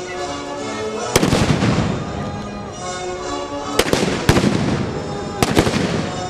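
Gunshots fired in a mock battle, about five sharp bangs at uneven intervals, each with a ringing tail, over background music with held notes.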